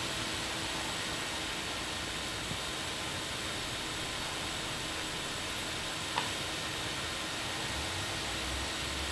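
Steady background hiss, like microphone or room noise, with a single faint click about six seconds in and a low hum coming in near the end.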